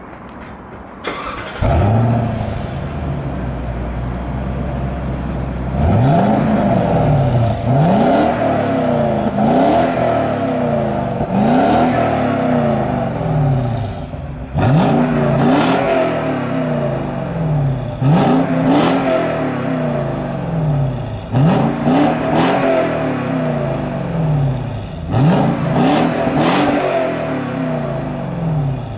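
Lexus LX570's 5.7-litre V8 with a reworked aftermarket exhaust, heard at the tailpipes. It starts about two seconds in and idles, then from about six seconds in is revved in a dozen or so short blips, each rising and falling in pitch.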